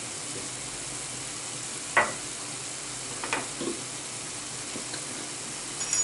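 Vegetables frying in a pan with a steady sizzle. A sharp clack about two seconds in and a lighter one a little after three seconds.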